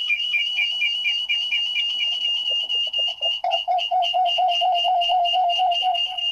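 Electronic alarm-style beeping from phones: a rapid high-pitched beep repeating about five times a second, joined about halfway through by a second, lower beep pattern pulsing at a similar pace.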